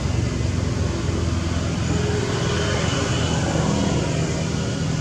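Steady low rumbling background noise with an even hiss above it, like distant traffic or wind on the microphone, with no distinct event.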